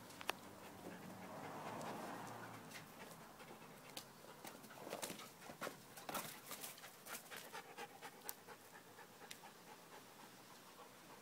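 Dogs panting during rough play, faint, with a run of short sharp clicks and scuffs through the middle.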